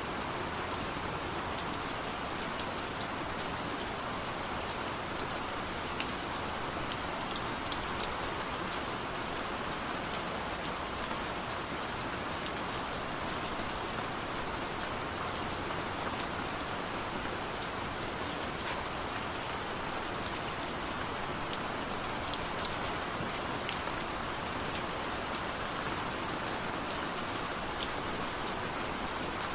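Steady rain falling, an even hiss with sharp drop ticks scattered through it and no thunder.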